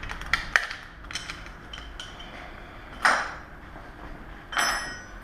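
Metal bicycle pedal and tools handled, clinking and knocking lightly, with a short rasping noise about three seconds in and a brief clink with a high ring near the end.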